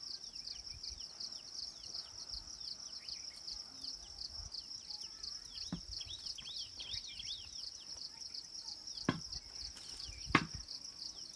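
A steady, high-pitched chorus of insects, with a run of short, falling bird chirps in the middle and two sharp clicks near the end.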